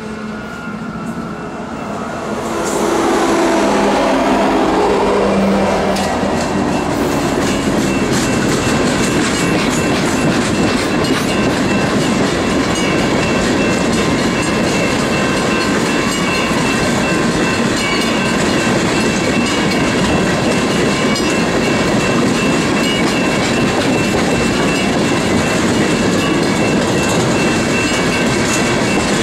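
Union Pacific manifest freight train passing close by. In the first few seconds a pitched tone falls away as the trailing diesel locomotive goes past. After that, a long string of tank cars rolls by with a steady wheel-on-rail rumble and clickety-clack.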